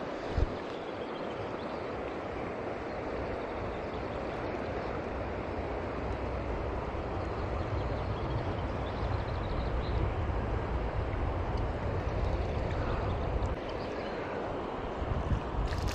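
Steady rush of flowing river water, with a low rumble that swells through the middle and a single sharp knock about half a second in.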